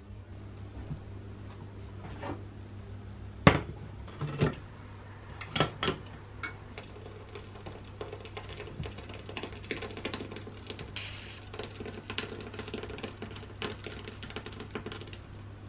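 Stainless steel pot and slotted spoon knocking and scraping against a sieve as cooked plum pulp is scraped out of the pot: a few sharp knocks in the first six seconds, the loudest about three and a half seconds in, then a run of quick light clicks and taps over a steady low hum.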